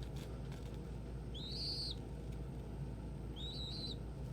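Young pigeon squab (squeaker) peeping: two thin, high whistled peeps, each about half a second long and about two seconds apart.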